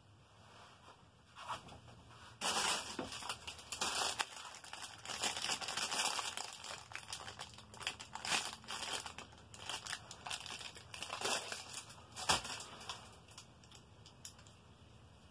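Thin plastic packaging bag crinkling as it is handled and opened, in irregular bursts over several seconds, with a single sharp click late on.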